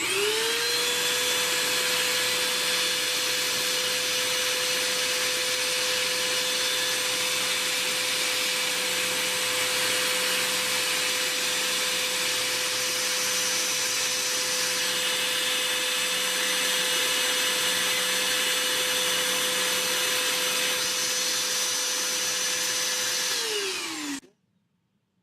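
Portable car vacuum cleaner switched on, its motor whining up to speed within a second and then running steadily with a high whine over rushing air. Near the end it is switched off and the whine falls away as the motor spins down.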